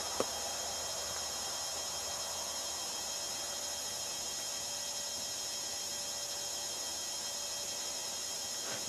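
Steady background hiss with a high-pitched whine in it, and one sharp click just after the start.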